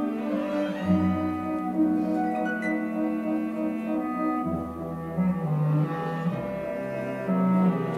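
Orchestral music for a ballet adagio: slow, sustained notes with bowed low strings carrying the melody.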